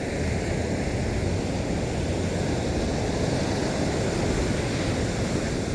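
Steady rushing noise of surf, with wind buffeting the microphone.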